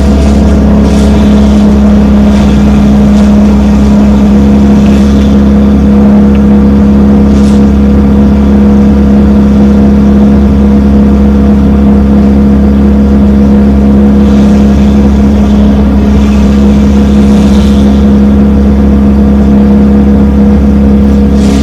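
A motor vehicle's engine running steadily at an even, unchanging pitch, a constant low drone with no revving.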